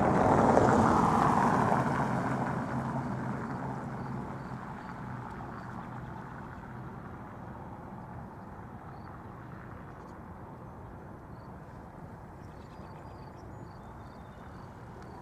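A vehicle passing by, loudest about a second in and fading away over the next few seconds, leaving a steady distant traffic hum.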